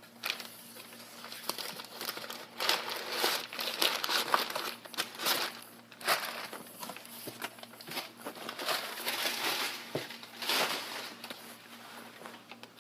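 Packaging from a mail-order shipping box crinkling and rustling as it is unpacked by hand, in irregular bursts that are loudest a few seconds in and again near the end.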